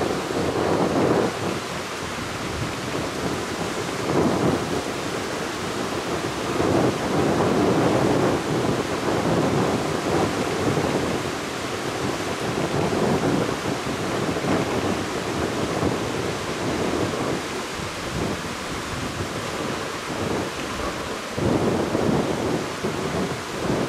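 Sea waves washing onto a beach: a continuous rush of surf that swells every few seconds as each wave comes in.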